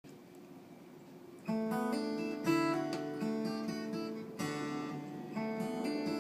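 Acoustic guitar strumming chords as an instrumental introduction, coming in about a second and a half in after a faint hiss.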